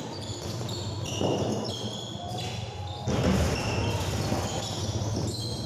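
Basketball game sounds: a ball bouncing on the court, with short high squeaks from sneakers on the floor, louder from about three seconds in.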